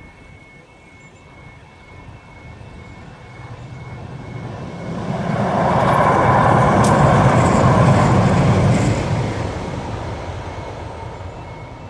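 Tyne & Wear Metro train passing over a level crossing: it grows louder over a few seconds, is loudest for about three seconds with a single sharp clack in the middle, then fades away.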